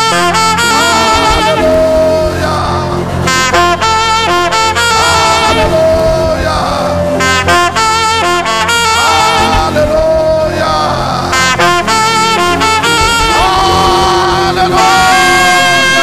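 Saxophone playing quick, repeated runs and phrases over a steady low backing, settling into a long held note near the end.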